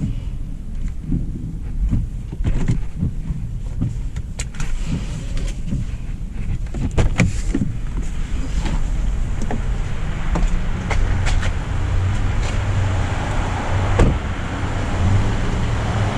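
Car noise from a 2025 Hyundai Elantra SEL: a steady low rumble with scattered clicks and knocks, and a hiss that grows louder through the second half.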